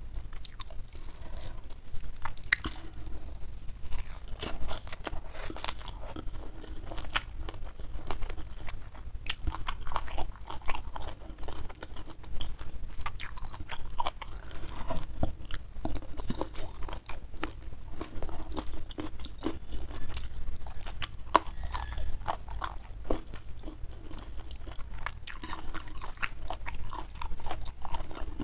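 Close-miked mouth sounds of a person eating: steady chewing with frequent short, crisp crunches.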